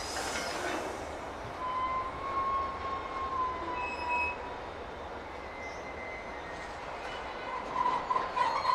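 Car-carrying freight wagons rolling slowly past, their wheels giving long, thin squeals over the steady rumble of the train. A short rush of noise comes at the start, and the squealing grows louder and multi-toned near the end.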